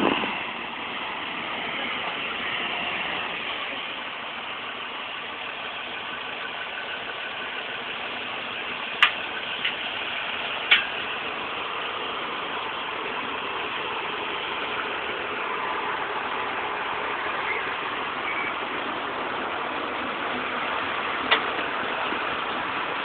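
Terex Reedrill drill rig's engine running steadily, with a few sharp clicks.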